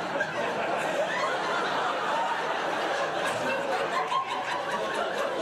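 Theatre audience laughing, a steady mass of many voices chuckling and laughing together.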